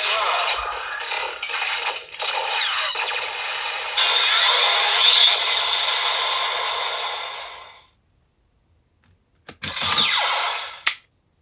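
DX Shotriser toy from Kamen Rider Zero-One playing its finishing-move sound effects and music through its small, thin-sounding speaker, with sweeping electronic tones, cutting off about eight seconds in. Near the end come a few plastic clicks from the toy being handled and a second short electronic burst with a falling sweep.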